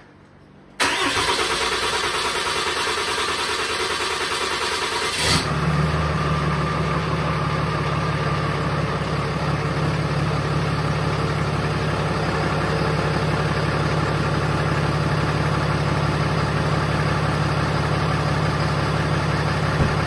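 6.7 L Cummins inline-six turbo diesel in a 2018 Ram 3500 cranking on the starter for about four and a half seconds, then catching about five seconds in and settling into a steady idle. This is the first start after the intake horn, plenum and fuel lines were replaced.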